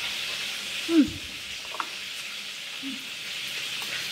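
A plastic spoon scooping fried rice on a plate, with a low, falling thud about a second in and a small click soon after, over a steady hiss.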